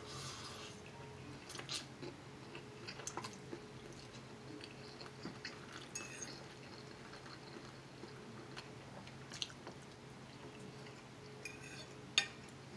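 A person quietly chewing lo mein noodles and fried rice, with a brief slurp of noodles at the start. Light, scattered clicks of a metal fork against the plate, the sharpest one near the end.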